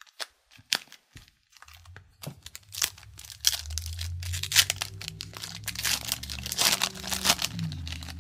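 Foil wrapper of a Tim Hortons Upper Deck hockey card pack torn open and crinkled by hand as the cards are pulled out: a few light clicks first, then dense crinkling from about a second and a half in.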